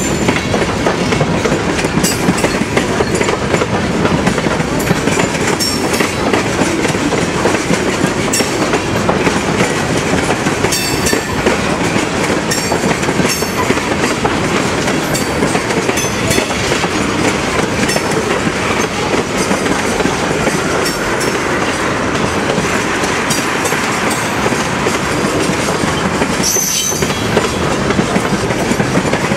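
Freight train of tank cars rolling past close by: a steady rumble of steel wheels on rail with scattered clicks and clanks as the wheels cross the rail joints. A brief high squeal comes near the end.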